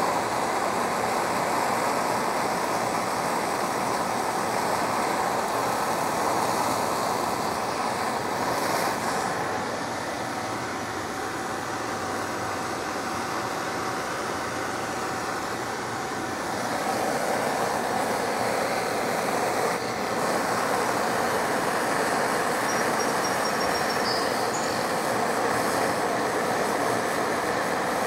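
Handheld propane torch flame running with a steady rushing hiss as it heats an aluminum hull for brazing with aluminum rod. It drops a little in level for several seconds in the middle and comes back up.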